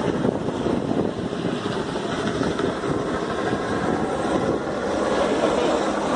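Helicopter running, its rotor and engine making a steady, loud, dense noise.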